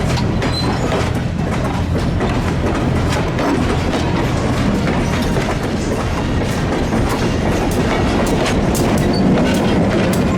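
A train rolling past, its wheels clicking over the rail joints in a steady stream of clacks.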